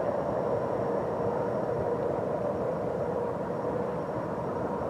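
GE AC4400CW diesel-electric locomotive, the rear distributed power unit of a freight train, working under power as it passes: a steady engine drone with a held mid-pitched tone.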